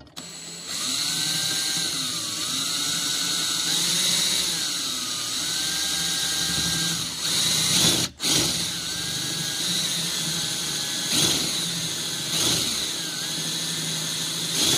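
Power drill driving a self-drilling (tek) screw, its drill-bit point cutting through a metal square tube. The motor pitch rises and falls as the load changes, and it stops briefly about eight seconds in before starting again.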